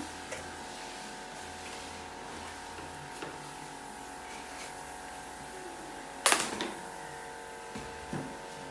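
A steady mechanical hum made of several fixed tones, with a sharp knock about six seconds in and a softer knock near the end.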